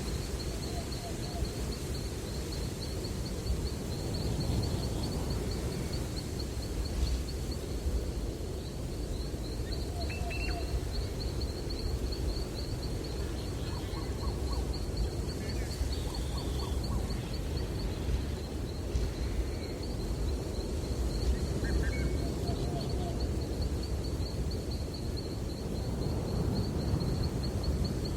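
Breeze blowing through trees with a steady rustle, under a continuous high-pitched pulsing trill and scattered short bird chirps.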